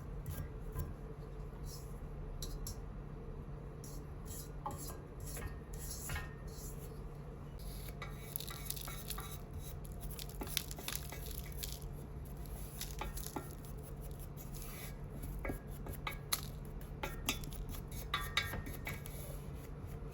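Metal clinking and scraping as a brass charcoal samovar is handled and cleaned, with irregular taps and rubs that are busiest in the second half, over a steady low hum.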